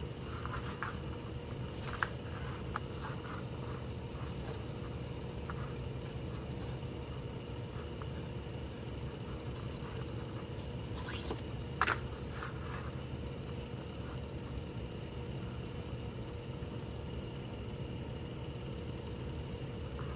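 Paracord being threaded and pulled through a braided bracelet by hand: faint scraping and rustling of the nylon cord, with a couple of sharper ticks about two seconds in and again near the middle, over a steady low background hum.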